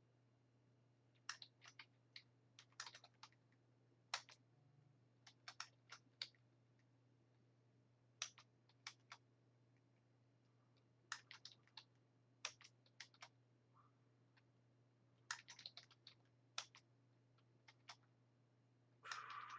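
Faint computer keyboard typing and clicking in short, irregular clusters, over a low steady hum. A brief, louder noisy sound comes near the end.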